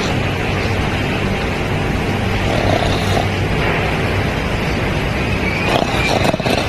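A sleeping dog snoring into a close microphone, loud and rough over a steady low hum, with a swell on each breath about every three seconds.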